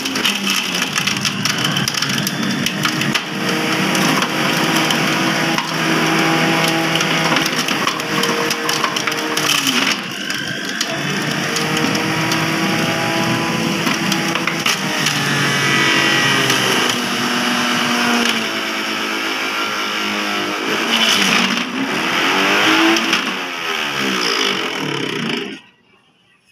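Electric juicer motor running under load as beetroot pieces are pushed down the chute and ground, its pitch dipping and recovering again and again. The motor cuts off near the end.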